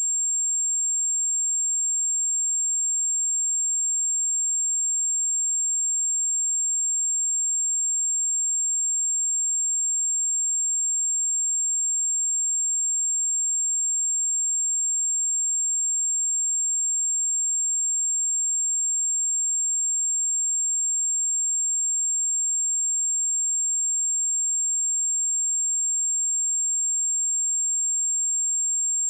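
A steady, unbroken high-pitched 7446 Hz sine-wave test tone, a single pure pitch held at constant level.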